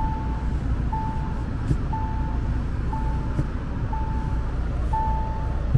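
A vehicle's dashboard warning chime beeping steadily, about once a second with each beep half a second long, over the low steady rumble of the engine and tyres as the vehicle crawls through snow, heard from inside the cabin.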